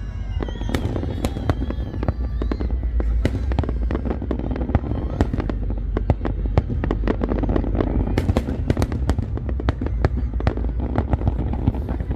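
Fireworks display: a dense, continuous run of bangs and crackles over a steady low rumble.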